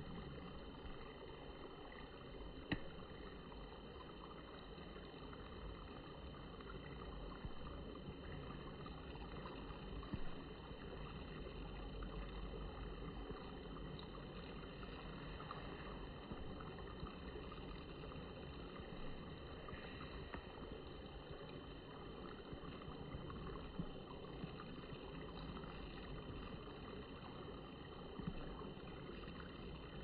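Faint, steady sound of river water flowing, with a single sharp click about three seconds in.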